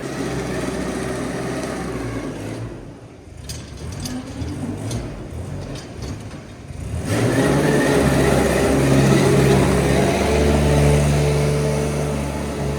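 An engine or motor running steadily. It drops quieter for a few seconds, then picks up louder about seven seconds in.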